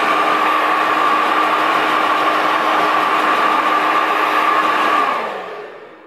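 Conair 3Q brushless hair dryer running, a steady rush of air with a high whine. It is switched off about five seconds in, and its pitch drops as it winds down.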